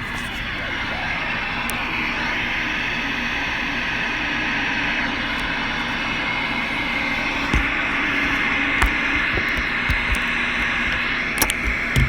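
CB radio receiver static: a steady hiss with a faint hum under it, broken by sharp crackling pops in the second half.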